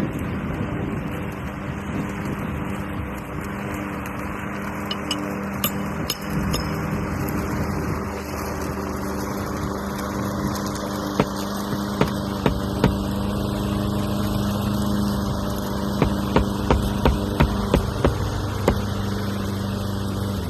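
A steady engine-like hum, with a run of sharp knocks in the second half; the hum cuts off suddenly at the end.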